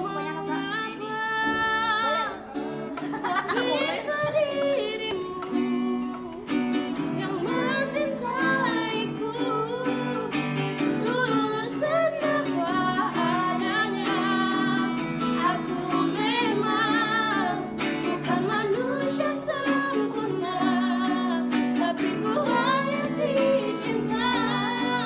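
A woman singing a slow, melodious song with wavering vibrato on held notes, over an instrumental accompaniment of steady held tones.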